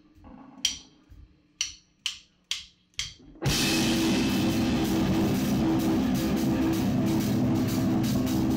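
Live rock band. A few sharp drum hits ring out, the last four evenly spaced about half a second apart like a count-in. About three and a half seconds in, the full band comes in together, with drum kit, electric guitars and bass, loud and dense.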